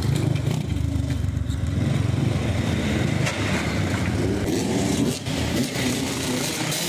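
Dirt bike engine running and revving, the pitch shifting up and down as the throttle is worked.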